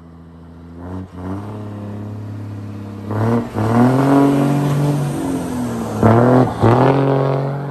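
Diesel engine of a Volkswagen Constellation truck fitted with a long straight exhaust pipe, loud as it pulls away and accelerates. The pitch climbs and drops back several times, with the loudest pulls around three to four seconds in and again near six to seven seconds.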